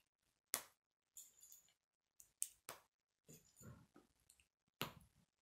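Plastic K'nex pieces being handled and snapped together: about four sharp, quiet clicks with soft rattling and shuffling between them.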